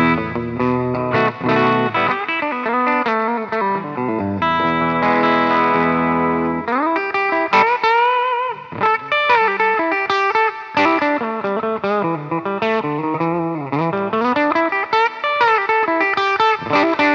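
Electric guitar played through its bridge humbucker on a clean amp tone: struck chords, a chord left ringing for a couple of seconds, then single-note lead lines with string bends. The tone is bright and punchy with a strong midrange.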